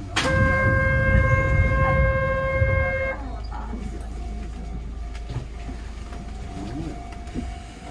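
A steady signal tone, one pitch held for about three seconds over a low rumble, cuts off sharply. A fainter steady whine follows.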